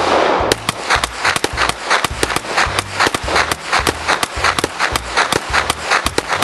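Two semi-automatic pistols, one of them a .45, firing shot after shot, about four shots a second between them. The spent cases are ejected hot.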